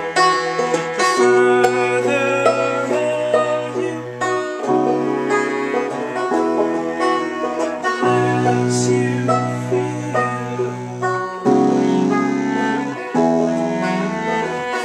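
A small band plays an instrumental tune, with banjo and electric piano over long-held low notes that change every second or two.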